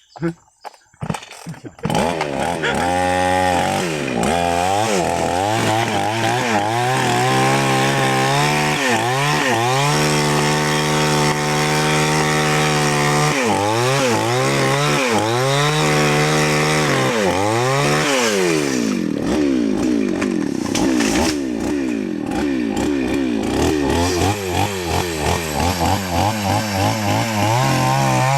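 New West 568 two-stroke chainsaw starting up about two seconds in, then revving up and down repeatedly. From about 19 to 24 seconds its note turns rougher and lower, as when the chain is under load cutting into the kapok trunk.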